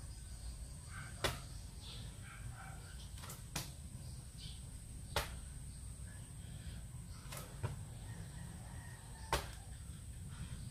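Burpees: sharp slaps of hands and feet landing on the floor, about one every two seconds, over a steady low hum.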